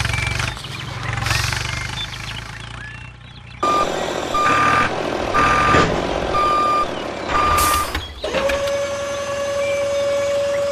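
A vehicle engine rumbling, then a reversing alarm beeping five times about a second apart over the engine noise, followed by a steady held tone for the last couple of seconds.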